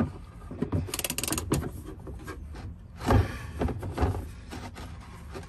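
Ratchet wrench with a hex bit tightening a steel oil drain plug firmly into the oil pan. There is a quick run of ratchet clicks about a second in, then a few knocks of the tool.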